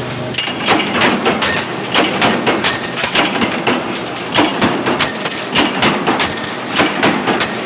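Coin minting press running, its stamping strokes clanking two or three times a second over a steady mechanical din.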